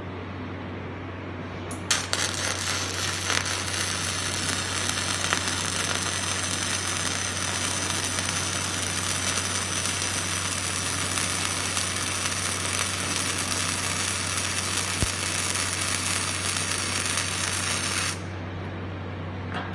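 Gasless flux-cored wire welder running a flat weld: the arc strikes with a sharp crack about two seconds in, crackles and sizzles steadily for about sixteen seconds, then cuts off near the end. A steady low hum sits underneath.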